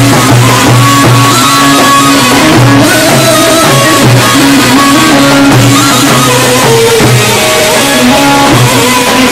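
Live Turkish folk music: a clarinet playing the melody over a plucked lute, loud through a PA speaker, with davul drums beaten with a mallet and a thin stick.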